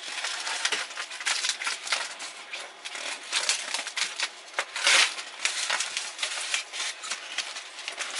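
Cardboard box and styrofoam packing scraping, rubbing and crackling in irregular bursts as a packed machine is pulled and worked out of the box, with a louder burst about five seconds in.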